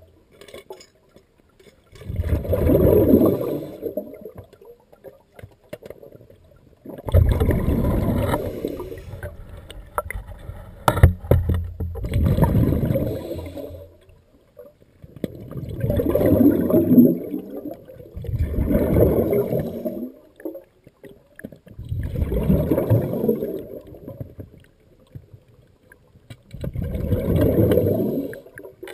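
Scuba diver's exhaled breath bubbling out of the regulator, heard underwater as about seven gurgling rushes of roughly two seconds each, a few seconds apart, with a sharp click or two about halfway through.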